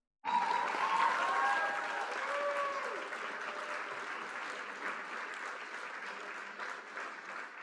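A crowd applauding and cheering, starting suddenly, with a few whoops in the first few seconds, then slowly dying down.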